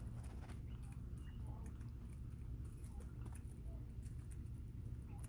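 Bobwhite quail pecking mealworms from a dish: faint, scattered clicks and taps, with a few soft short peeps, over a low steady hum.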